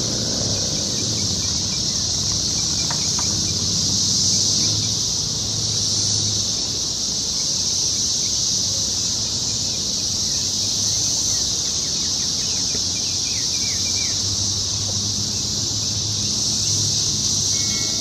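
Dense chorus of periodical cicadas, the males' mating call, a loud, steady, high-pitched buzzing drone without a break, with a few faint bird chirps around the middle.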